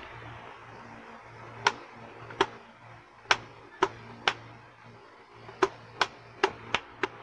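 About ten sharp, short clicks of hard plastic from the chin vent of an Evo GSX3000 full-face motorcycle helmet being worked open and shut, coming at uneven intervals.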